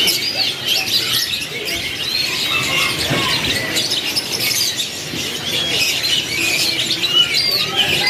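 A crowded cage of young canaries chirping in many short, overlapping calls, with wings fluttering as they flit between perches.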